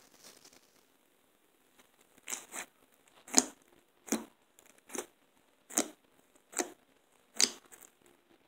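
Fingers poking and squeezing a tub of fluffy cloud-style slime made with bath gel, glue and borax. It gives a short crackle with each press, about eight presses spaced roughly a second apart.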